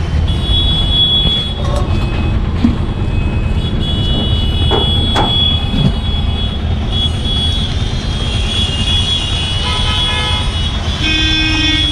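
Busy street traffic running steadily, with vehicle horns sounding and a lower horn honking near the end.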